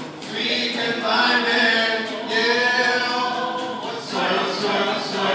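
Several voices singing together in a musical-theatre medley.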